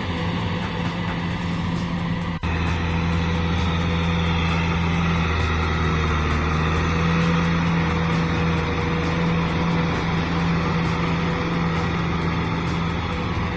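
Kubota M6040SU tractor's diesel engine running steadily under load as it drives a rotary tiller through flooded paddy mud, with a momentary break in the sound about two seconds in.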